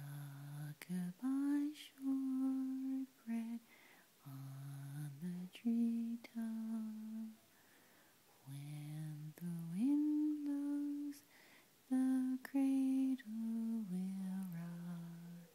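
A person humming a slow lullaby: a tune of long held notes that step up and down, in phrases with short pauses between them.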